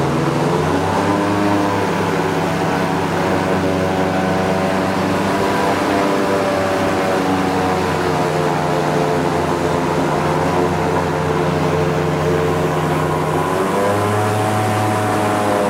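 Airboat's engine and air propeller running at speed, a loud steady drone. Its pitch rises and dips slightly a few times as the throttle changes, rising again near the end.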